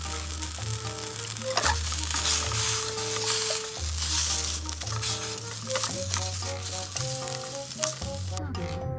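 Sausages sizzling as they fry in a stainless steel camp pan over a gas canister stove, with the sizzling falling away near the end. Background music plays throughout.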